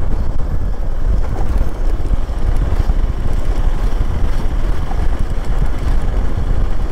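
Steady low rumble of a vehicle on the move: road and wind noise.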